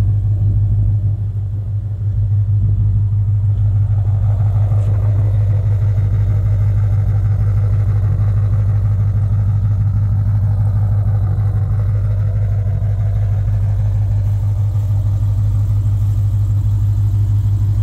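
2017 Dodge Challenger SRT Hellcat's supercharged 6.2-litre V8 idling, a steady low drone that dips briefly about a second in.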